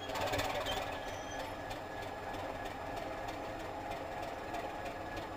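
Six-cylinder ČKD diesel engine of a class 751 "Bardotka" locomotive running steadily, slightly louder in the first half-second.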